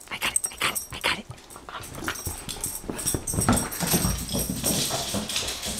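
Sharp clicks and knocks, then from about two seconds in a denser clatter of dogs' claws scrabbling on a hardwood floor as beagles run after a thrown rubber Kong toy.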